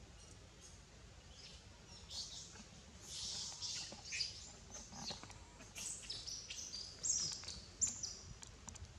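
Rapid series of short, high-pitched animal chirps and squeaks. They start about two seconds in, with a few steadier held notes near the end.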